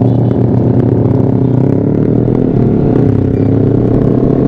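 Sport motorcycle engine running while riding, its pitch rising gradually as the bike accelerates, with wind rumble on the action camera's microphone.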